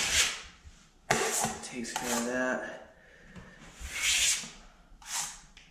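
Metal drywall knife scraping fast-setting joint compound, about five short scrapes as the mud is loaded and skimmed over the wall.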